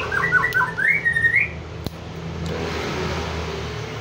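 A bird chirps a quick run of short rising notes for about the first second and a half, over a steady low hum. From about two and a half seconds in, the rushing sound of a vehicle going by rises and then slowly fades.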